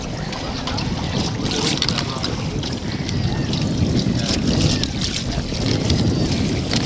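Wind buffeting the microphone and water rushing and splashing around the hull of a small boat under way on choppy lake water, as a steady noise.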